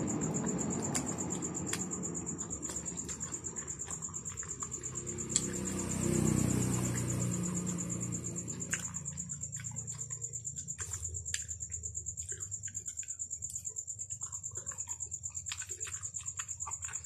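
Quiet chewing of soft jackfruit with scattered small mouth clicks, over a steady high-pitched trill that runs throughout. A low rumble swells about six seconds in and fades a few seconds later.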